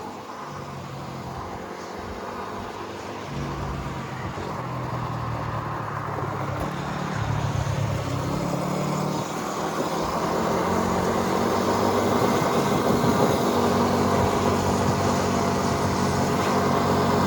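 A small motorbike engine running at cruising speed, its pitch shifting a little, over wind and road noise. It grows gradually louder.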